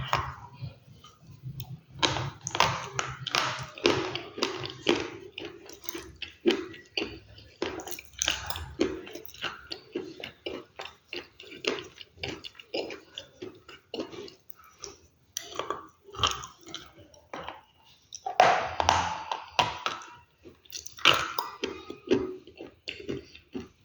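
Close-miked chewing of crunchy food: dense, irregular crunches and crackles with short pauses between bites. The loudest bursts come about three-quarters of the way in.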